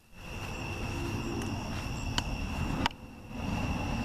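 Steady chirping of crickets, with the low rumble of a distant car on a road that grows louder near the end.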